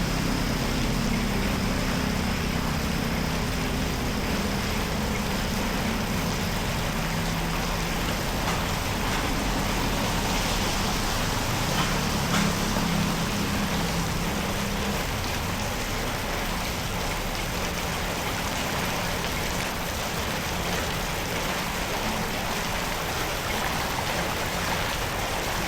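Floodwater running steadily, a continuous rush of water such as flows into a cleared street drain. A low hum sits under it and fades out about halfway through.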